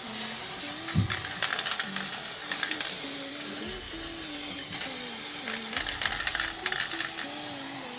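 Aerosol spray-paint can being shaken, its mixing ball rattling in irregular bursts of clicks, over a steady hiss and quiet instrumental background music.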